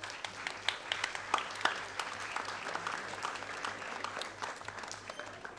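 Audience clapping, a dense patter of many hands that is strongest in the first two seconds and thins out toward the end.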